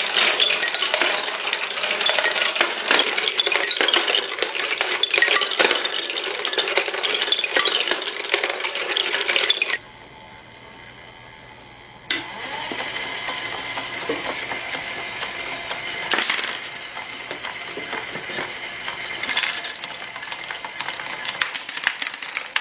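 Many marbles clattering and clicking down the wooden tracks of a homemade marble machine. About ten seconds in the clatter cuts off to a low steady hum for a couple of seconds, then lighter clicking and rattling resumes over the running of the lift's electric motor and gear drive.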